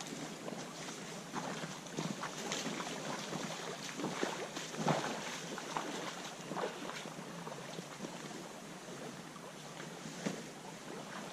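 Stream water rushing in a steady wash, with scattered small splashes and knocks.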